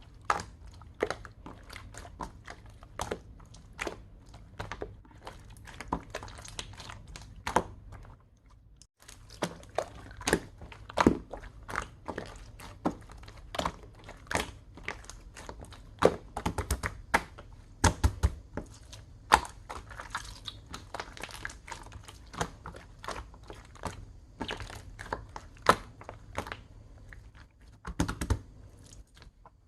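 Clear slime being squished and worked by hand, making many irregular sharp clicks and sticky pops, with a brief break about a third of the way through.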